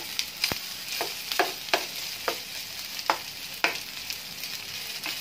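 Metal spatula scraping and knocking against a frying pan while stir-frying rice, over a steady sizzle. The strokes come unevenly, about eight in the first four seconds.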